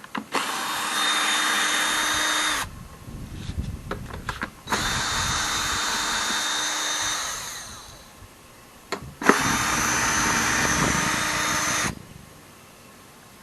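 Drill with a 10mm socket backing out the three bolts that hold a Honda GCV engine's recoil starter housing. It makes three runs of a couple of seconds each. The second run winds down with falling pitch, and short clicks and knocks fall between the runs.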